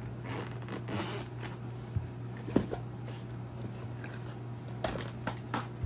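Jump starter kit and its packaging being handled: rustling for about the first second, then a few short light knocks and clicks as parts are moved about, over a steady low hum.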